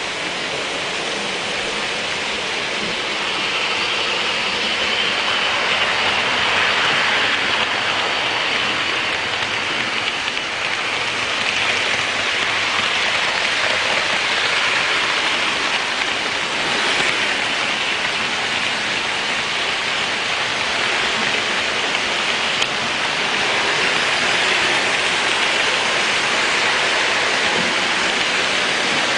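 Märklin HO model trains running on the layout's metal track: a steady whirring, rolling hiss that swells several times as trains pass close by.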